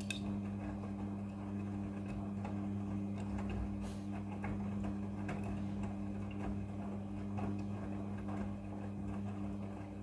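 Midea front-loading washing machine in its wash cycle, the motor turning the drum with a steady low hum and light irregular clicks as the wet laundry tumbles.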